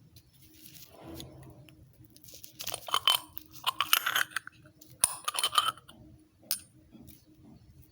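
Plastic packaging crinkling and crunching as it is handled, in three bursts about a second apart, followed by a single small click.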